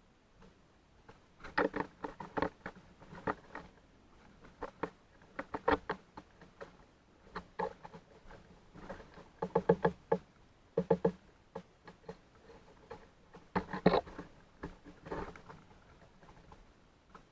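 Birds pecking and scrabbling on a feeder, heard as irregular clusters of quick, hollow-sounding taps and knocks with pauses between them.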